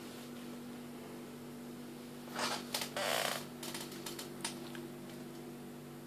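Steady low electrical hum with several fixed tones. From about two and a half to four and a half seconds in, a short burst of rustling and a few sharp clicks, typical of a handheld camera being moved.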